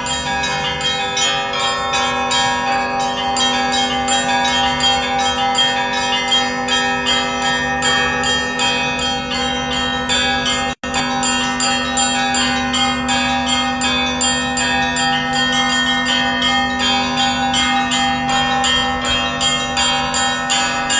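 Russian Orthodox church bells ringing a festive peal: many bells struck in quick, overlapping succession over a steady low ringing tone. The sound breaks off for a split second about eleven seconds in.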